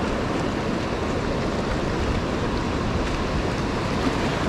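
Sea surf washing over shore rocks, a steady rushing noise, with wind buffeting the microphone.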